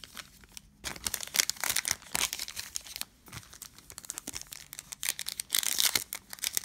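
Crinkling and tearing of a Panini Prizm retail card pack's plastic wrapper being handled and torn open by hand, in dense crackles that start about a second in, pause briefly around the middle and pick up again near the end.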